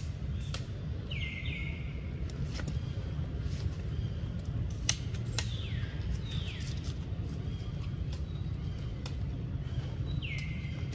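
Short high-pitched animal calls, each falling in pitch, alone or in quick pairs every few seconds, over a steady low rumble. A sharp click sounds about five seconds in, with fainter clicks around it.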